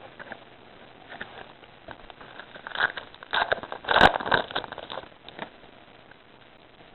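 A trading-card pack wrapper crinkling and tearing open, with the cards rustling as they are handled: a run of irregular crackles between about one and five and a half seconds in, loudest around four seconds.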